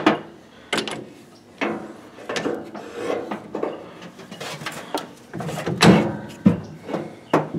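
Irregular clunks and knocks of hand tools and metal parts, about a dozen spread unevenly, as the upper nut of a front shock absorber is worked loose.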